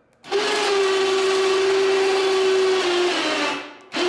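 Electric ATV winch reeling in its cable to lift a snow plow blade: a steady motor whine that starts just after the beginning. It dips slightly in pitch about three seconds in, stops briefly, and starts again near the end.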